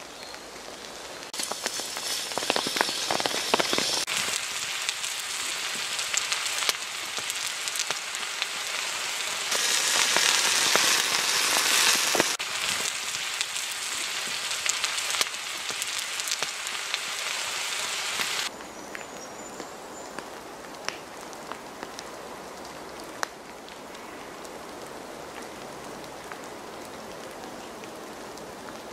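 A pan of chili con carne sizzling and bubbling on the heat: a steady hiss thick with small crackles that jumps up and down in level at several abrupt changes, then drops to a quieter, even hiss for the last third.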